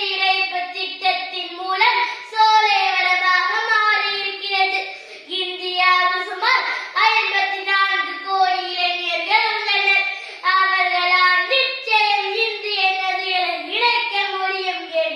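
A boy's high voice declaiming a speech in Tamil, loud and sing-song, with drawn-out words and short breaks for breath.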